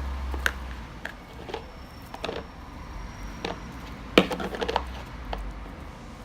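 A utensil clicking and knocking against a bowl while stirring a sticky slime mixture, with irregular taps and one louder knock about four seconds in.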